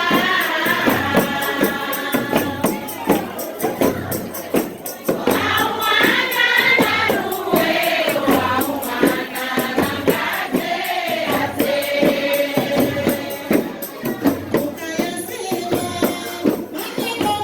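Live Algerian tari wedding music: a group of voices singing together in chorus over a steady beat of frame drums with jingles.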